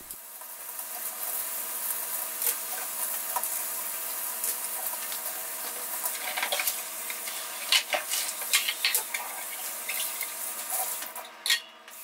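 Kitchen faucet running water into a sink while a wire freezer shelf and plastic fridge bins are washed, with clinks and knocks as they hit the sink, most of them in the second half.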